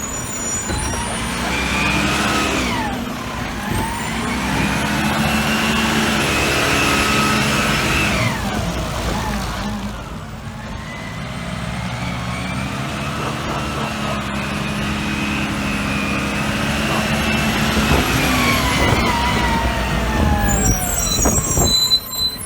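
Garbage truck's brakes squealing in two long, high squeals that rise and then fall in pitch, over the truck's engine running.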